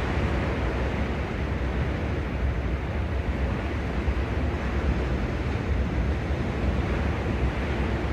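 Sea waves washing steadily on the shore, with a low rumble of wind on the microphone.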